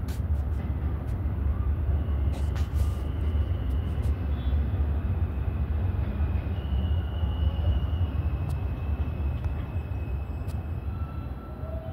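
New York City subway train approaching on elevated track: a steady low rumble, with a few sharp clicks in the first three seconds and a faint high whine from about four seconds in.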